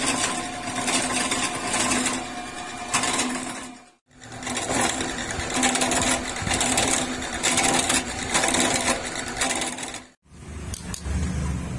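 Drill press driving an end-mill cutter along a steel shaft to cut a keyway: a steady motor hum with the scraping and chatter of the cutter biting into the metal. The sound cuts out abruptly about 4 s in and again about 10 s in, and a lower, rougher sound follows the second break.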